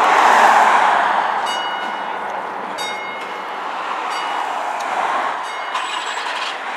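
Fire truck's diesel engine running in the station bay, with a loud rush of air in the first second and several short bursts of high beeping tones.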